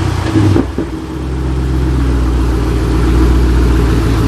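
Car engine running just after being jump-started from a dead battery, with a short surge about half a second in, then settling into a steady idle.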